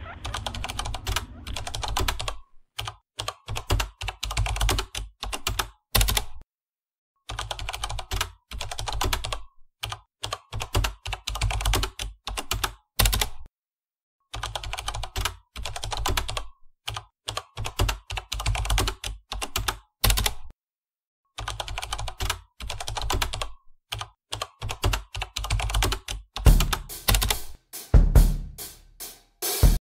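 A rhythmic beat played on desk objects: clacking computer-keyboard keys over low thumps on the desktop. It stops dead for a moment several times.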